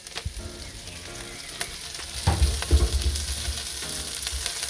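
Sliced spring onions sizzling in hot rapeseed oil in a wok, stirred, with knocks of the utensil against the pan, the loudest a little past halfway.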